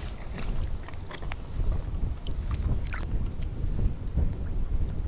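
Wind rumbling on the microphone, with scattered light clicks and small water splashes beside an inflatable boat.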